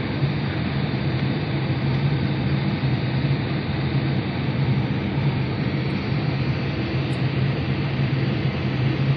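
Engine running steadily: a low hum under a rushing noise.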